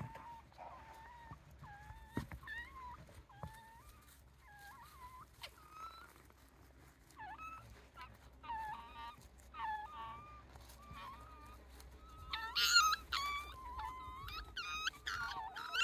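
Japanese raccoon dog (tanuki) pups whining: many short, high, wavering whimpers and squeals, growing louder and more frequent near the end.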